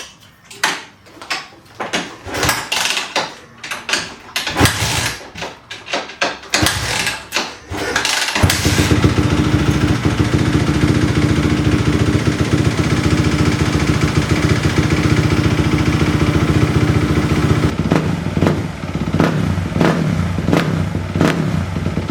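Kawasaki KX250F single-cylinder four-stroke motocross engine being started after an oil and filter change: several irregular bursts of failed start attempts. It catches about eight seconds in and runs steadily, then rises and falls in a string of throttle blips near the end.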